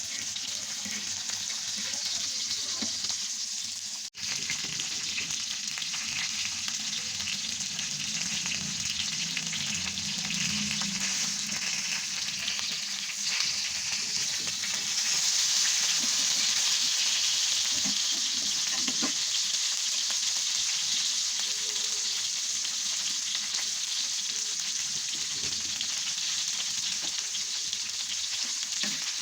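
Hilsa fish frying in a pan, a steady sizzle that grows louder about halfway through, with a momentary break about four seconds in.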